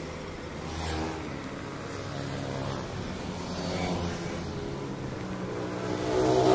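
A motor vehicle's engine running close by in road traffic, rising in pitch near the end as it speeds up.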